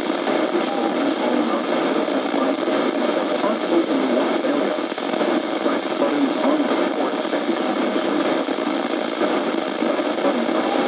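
Steady radio static from a weather-radio receiver: an unbroken rough hiss with no alert tones.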